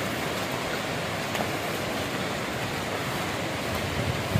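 Steady rushing of water from a nearby waterfall.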